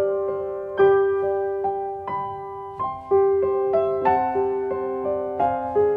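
Background piano music: a slow, gentle melody of single notes struck about once a second, each ringing out and fading.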